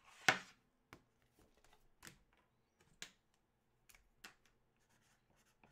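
A hand picking a trading card up off a wooden desk: a sharp rustling click about a quarter second in, then a few faint separate ticks roughly once a second.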